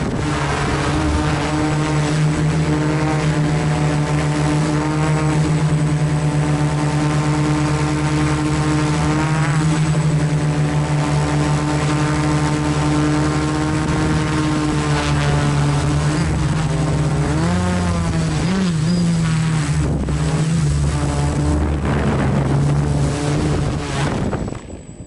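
A quadcopter's electric motors and propellers, heard up close from on board: a steady, loud buzzing whine whose pitch wavers as the throttle changes. It cuts off suddenly near the end as the craft lands and the motors stop.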